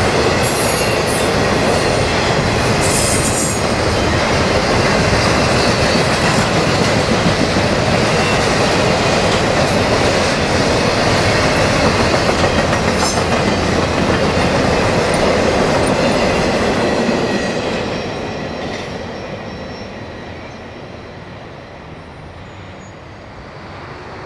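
CSX intermodal freight train's cars rolling past on steel wheels, a loud steady rumble with clacking over rail joints and thin wheel squeal. The noise fades away after about 17 seconds as the train moves off.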